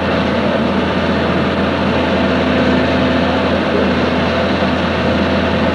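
Case hydraulic excavator's diesel engine running steadily under load as its arm works at a house being demolished.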